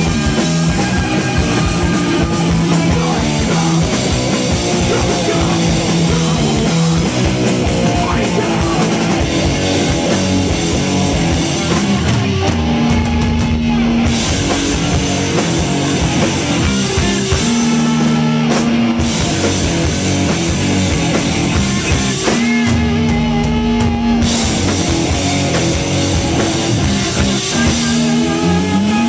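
Live metal band playing loud: distorted electric guitar riffing over a drum kit. Three times the drums and cymbals drop out while the guitar holds a single note for a second or two.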